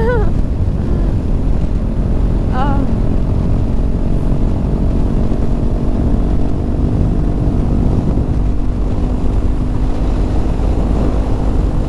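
Honda CB500F parallel-twin engine running at steady cruising revs as the motorcycle is ridden along a road, with wind rushing over the helmet-mounted microphone.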